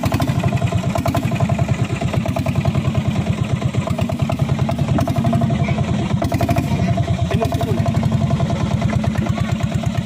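Small engine of a motorized wooden boat running steadily, freshly started, with rapid, even firing beats.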